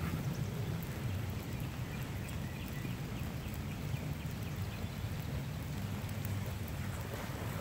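Steady rain falling, with a low rumble underneath.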